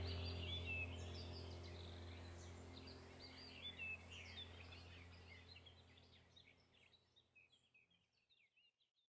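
Background soundtrack of sustained low tones with birds chirping over it, fading out gradually to silence by the end.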